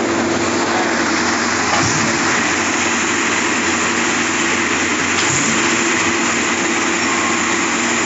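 Diesel engine of a trailer-mounted concrete pump running steadily as it pumps concrete.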